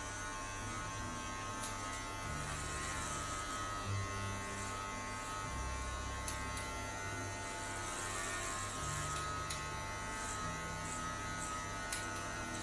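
Electric hair clipper running with a steady hum.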